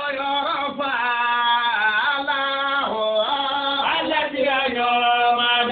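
A solo voice chanting a slow melody in long held, wavering notes.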